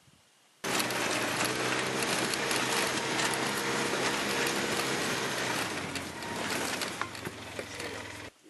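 Vehicle driving over rough ground: loud rattling and clattering with the engine's steady hum underneath. It starts abruptly under a second in and cuts off just before the end.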